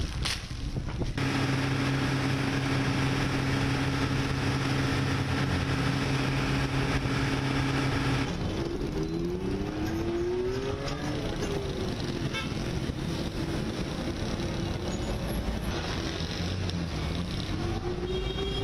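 Road traffic: vehicle engines running, with a steady low drone for about seven seconds that stops abruptly, then engine pitch rising and falling as vehicles, including motorcycles, pass.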